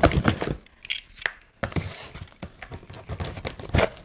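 An X-Acto craft knife slicing through the packing tape and cardboard of a box, in a series of short scraping strokes with a few sharp knocks from the box being handled.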